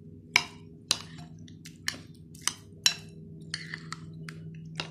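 Metal spoon stirring yogurt and chopped vegetables in a glass bowl, clinking sharply against the glass at uneven intervals, roughly twice a second.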